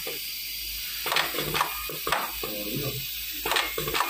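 Pneumatic radial-capacitor feeder on an auto-insertion machine cycling: a string of sharp mechanical clicks, roughly every half second, over a steady hiss.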